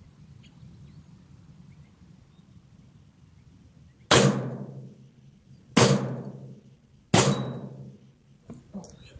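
Three single gunshots from a .22 Long Rifle firearm firing Blazer 40-grain ammunition. They come at about a second and a half apart, each sharp crack trailing off in a short echo.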